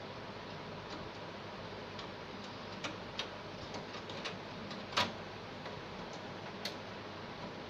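A handful of light, sharp clicks and taps over a steady hiss, the loudest about five seconds in.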